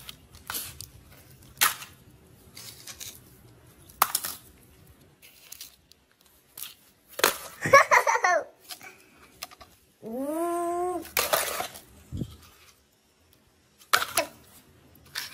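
Muddy plastic toy cars and trucks clicking and clattering as they are picked up and dropped into a wicker basket. A person giggles about 8 seconds in and makes a long wordless vocal sound a couple of seconds later.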